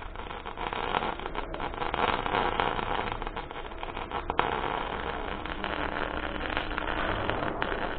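Electric arc welding a steel tooth onto a rock drill auger: the arc gives a steady, irregular crackle and sizzle.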